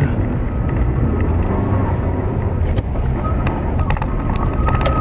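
A moving vehicle's steady low rumble of engine and road noise. A few sharp clicks come in the second half, and a thin steady whine starts about three seconds in.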